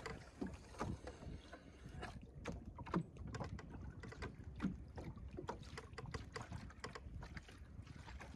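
Water lapping against the hull of a small sailing skiff under way, with irregular small slaps and splashes several times a second over a low wind rumble.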